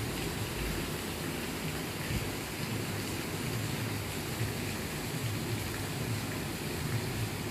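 Steady hissing background noise with an uneven low rumble underneath.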